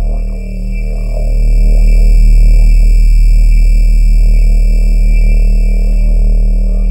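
Synthesized sci-fi 'subspace distortion' sound effect: a loud, steady electronic drone of stacked pure tones, with a deep hum and high ringing tones. It swells in loudness about a second and a half in, and short faint pitch sweeps flicker through it.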